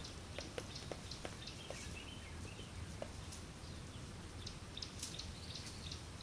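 Chimpanzees scuffling in dry leaf litter and twigs: irregular crackles and snaps, over a steady low rumble, with faint bird chirps.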